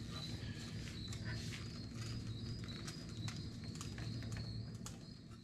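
Light scattered clicks and taps from a Harbor Freight sheet-metal brake being worked against a heavy-gauge steel sheet that is too thick for it to bend, over a low steady hum and a faint high whine. The sound fades out near the end.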